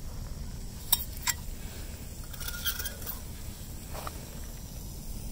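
Lightweight aluminium camping pot and lid clinking as they are handled: two sharp clinks about a second in, a few lighter clinks and scrapes a little later, and a soft knock near the end, over a steady low rumble.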